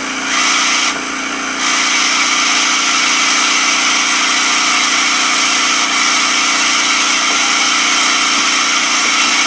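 Vacuum pump for a wood lathe vacuum chuck running steadily, a hum with a broad hiss of air, dipping briefly in level twice in the first two seconds.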